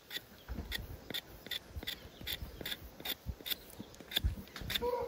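Loop hoof knife paring thin shavings of horn from a cow's claw in quick, short scraping strokes, about two or three a second. This is exploratory paring of a lame cow's sole in search of a hidden lesion. A rooster starts crowing near the end.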